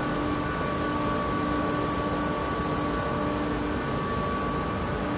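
Steady droning ambience with a constant machine-like hum in it.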